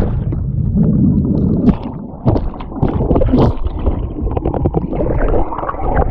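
A camera held underwater in a river picks up the muffled churning and gurgling of bubbles stirred up by a body plunging in from a jump. Many small pops and ticks run through it, with a short lull about two seconds in.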